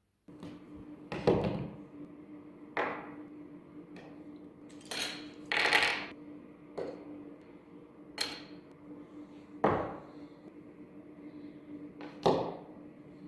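A series of about ten separate knocks and clinks, with two longer scraping rattles around the middle, over a steady low hum.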